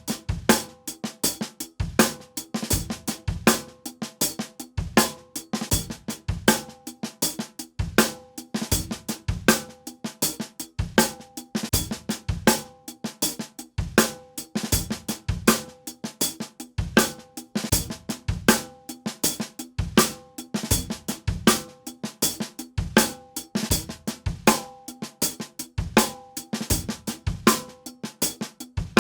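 Acoustic drum kit played in a steady groove with drumsticks: bass drum, snare and hi-hat with cymbals. A strong accent falls about once a second, with quicker strokes between.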